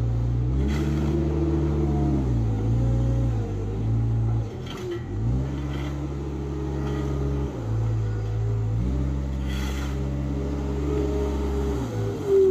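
Bobcat skid-steer loader's diesel engine working under changing load. Its revs rise and fall several times, dipping sharply about four and a half seconds in and again near the end. A few faint knocks come through.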